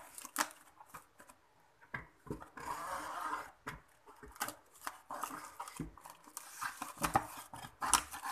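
Clear plastic cling film crinkling and crackling as it is stretched and pressed around a plastic tub, with scattered clicks and taps from handling the tub. There is a longer rustle about three seconds in.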